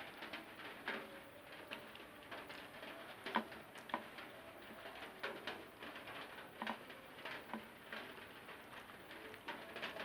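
Close-up eating sounds: chewing and wet mouth clicks and smacks of someone eating rice with egg curry, coming irregularly, the sharpest about a third of the way in.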